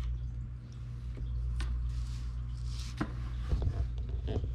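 A steady low hum with a few light clicks and a brief rustle, like objects being handled.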